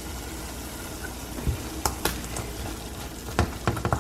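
Spinach, tomatoes and garlic sizzling in a frying pan, with a few sharp clicks of a utensil stirring against the pan, several of them close together near the end.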